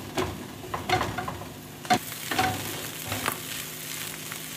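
Shredded tuna frying in a pan with a steady sizzle, while a spoon stirs it, scraping and knocking against the pan every half second to a second.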